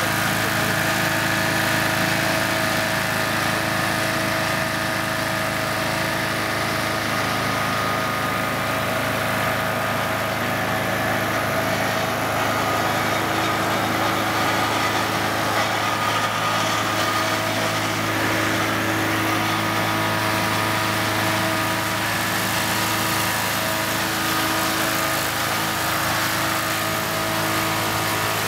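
Small engine-driven ground heater cart running steadily, blowing warm air through its duct into an aircraft engine to preheat it for a cold start. A constant low hum with an even mechanical drone over it, no changes in speed.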